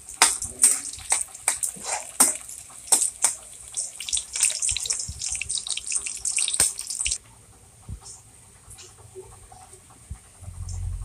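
Sliced onion and garlic sizzling in hot oil in a wok, with a spatula scraping and clacking against the wok as they are stirred. About seven seconds in the stirring stops, leaving only a faint sizzle, and a low rumble comes in near the end.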